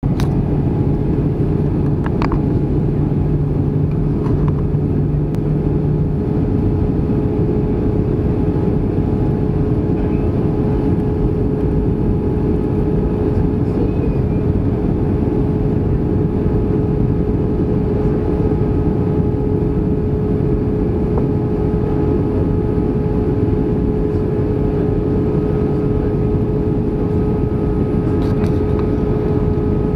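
Airbus A319 cabin noise in flight: a steady roar of engines and rushing air with a constant hum running through it. A lower hum cuts out about six seconds in.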